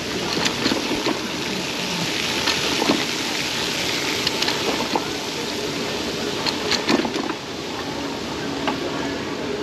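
Steady rushing noise of riding a pedal-assist e-bike, wind over the handlebar-mounted camera's microphone and tyres rolling on pavement, with scattered clicks and rattles from the bike over the bumps.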